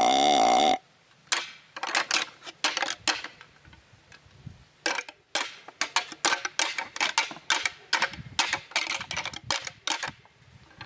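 A deer call is blown: a loud, wavering grunt that ends under a second in. It is followed by rattling antlers clashed and ground together in irregular bursts of sharp clacks, with a short pause near the middle.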